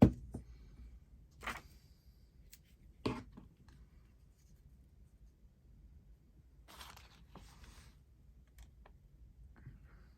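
Paper being handled at a craft table: a few sharp clicks early on, then a brief papery rustle about seven seconds in, as a torn book page is positioned for a punch.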